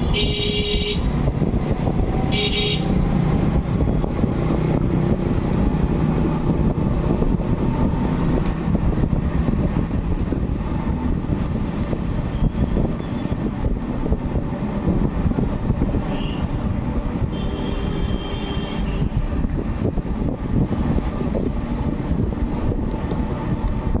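Road traffic noise, a steady rumble of engines and road or wind noise, with vehicle horns beeping: two short honks near the start, another brief honk about two-thirds through and a longer honk soon after.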